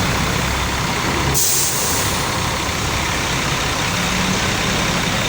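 Bus diesel engine idling with a steady low drone; about a second and a half in, a sharp hiss of compressed air lasting about half a second, the air brakes being released or set.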